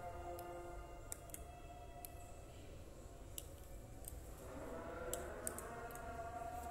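Metal spoon stirring whipped coffee into milk in a drinking glass, knocking against the glass in scattered light clicks.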